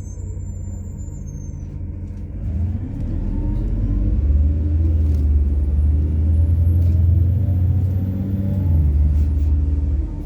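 MAZ-103 city bus's methane-fuelled engine pulling away. Its low drone rises in pitch and grows louder from about two and a half seconds in, holds strong, then drops suddenly near the end.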